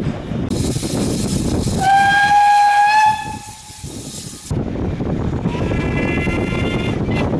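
Two steam locomotive whistles in separate clips. About two seconds in, BR Standard Class 4 2-6-0 No. 76017 gives a loud, steady whistle of about a second, pitch rising slightly, over the hiss of the engine. Near the end, a fainter whistle of about a second and a half is heard from the carriages over the running noise of the train, sounded for a lineside whistle board.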